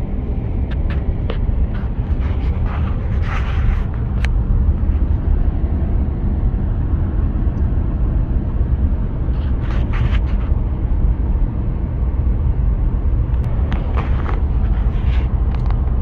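A car driving, with a steady low rumble of road and engine noise and a few light clicks.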